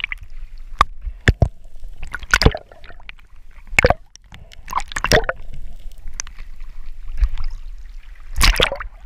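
Water noise on a diver's head-mounted camera, underwater and then breaking the surface: a low rumble with gurgling and sloshing, broken by scattered sharp clicks and knocks as the speargun's rubber band and wishbone are handled, and a burst of splashing near the end.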